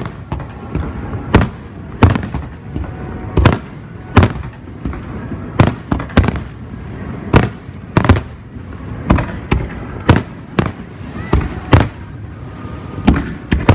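Aerial fireworks display: an uneven, rapid run of sharp bangs, more than one a second, over a continuous low rumble of further bursts.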